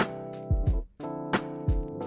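Background music: sustained keyboard chords over a regular drum beat, with a brief gap just before the middle.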